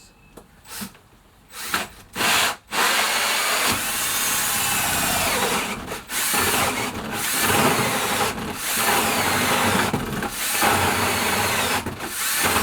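Power drill run in a few short bursts, then driven almost without a break for about ten seconds, with brief let-offs every second or two.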